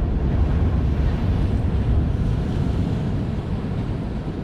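Wind buffeting the microphone over surf washing against the rocks of a stone jetty; the rush swells right at the start and slowly eases off over the last couple of seconds.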